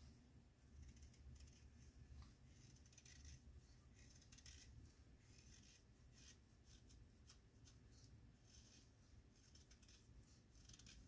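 Faint, short scraping cuts of a freshly sharpened pocketknife blade shaving small chips from a stick of wood, about one cut a second and irregular.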